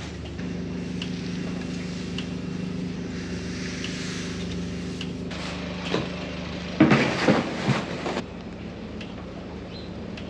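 A motor vehicle's engine running with a steady low hum. About seven seconds in comes a louder, noisy stretch lasting about a second and a half.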